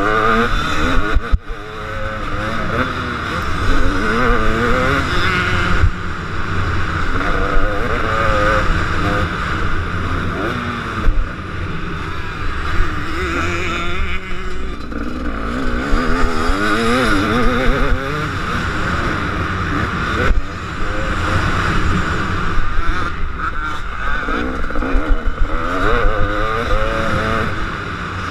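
Motocross motorcycle engine being ridden hard, its revs climbing and dropping again and again through gear changes, with a constant hiss running underneath.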